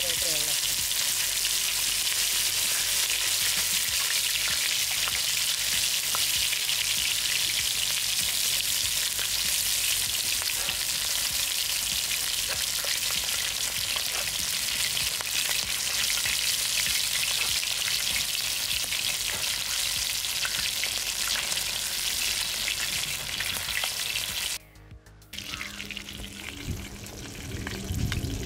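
Whole red pomfret frying in oil on a large iron tawa: a steady, even sizzle that cuts off suddenly about four seconds before the end.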